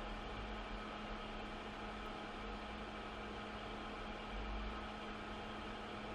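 Hot air rework gun blowing steadily while it reflows solder on a tablet charging port, a constant fan rush with a steady hum.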